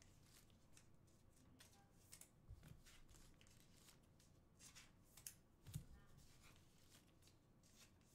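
Faint rustling and clicking of trading cards being handled and slid past one another, with a couple of soft taps.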